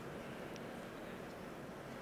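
Faint, steady background noise: room tone with no distinct sound event.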